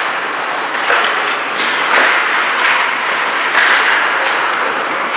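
Ice hockey play at the boards: a steady arena din with several sharp knocks and cracks of sticks, puck and players hitting the boards and glass.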